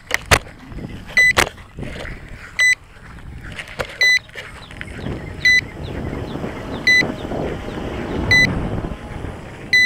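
Short high electronic beep repeating about every one and a half seconds, with rustling and handling noise in between that grows louder in the second half.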